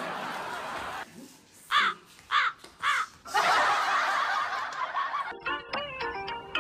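Laughter: four short, high-pitched laughs, then a longer stretch of laughing. A plinking tune starts near the end.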